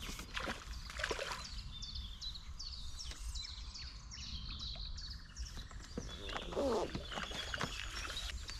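Songbirds chirping and singing in many short, quick notes, over a low steady rumble, with a short louder burst of noise about seven seconds in.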